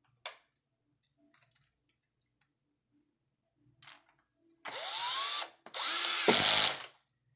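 Handheld electric drill/driver run in two bursts of about a second each, the first rising in pitch as the motor spins up, while driving a wheel nut on the RC truck. A few light clicks come before it.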